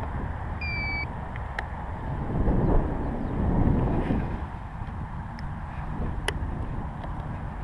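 Wind rumbling on the microphone, with a short high beep just under a second in and a couple of sharp clicks.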